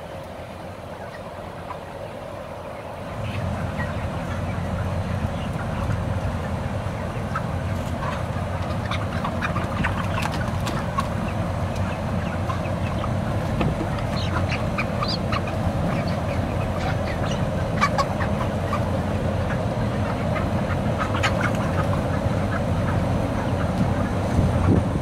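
A large flock of broiler chickens, about 35 days old, calling in many short, scattered clucks over the steady drone of the closed-house barn's big exhaust fans. The drone gets louder about three seconds in.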